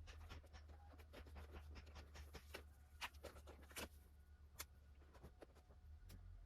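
Faint light clicks and scratching from hands working over plastic car-door trim while mastic sealant is spread on it, with a few sharper ticks about three to four and a half seconds in.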